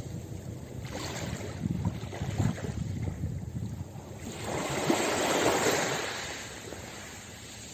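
Small sea waves washing onto a pebble beach; one wave swells up and breaks about halfway through, then fades away.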